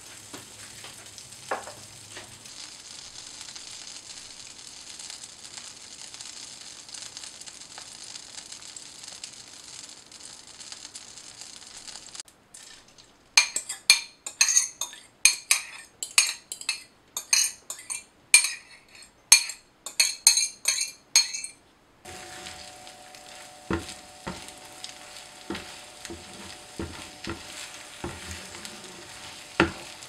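Butter sizzling steadily as it melts in a hot non-stick frying pan. About 13 seconds in, a run of loud, sharp clinks of a utensil against the glass bowl of beaten egg, then from about 22 seconds the eggs sizzle in the pan while a wooden spoon stirs and scrapes them in soft repeated strokes.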